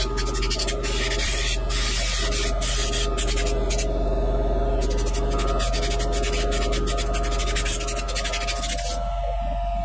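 Rapid scratchy rubbing and scraping of a hand tool worked against the internals of an opened cordless jigsaw, coming in spells and stopping near the end, over a steady low drone.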